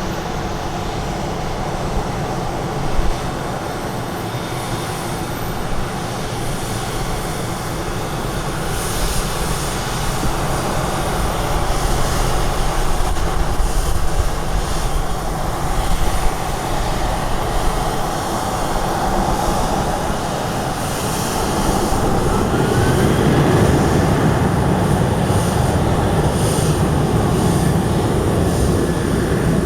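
Jet airliner engines running at an airport, heard as a continuous rumble and hiss that grows louder over the last third. Strong wind buffets the microphone.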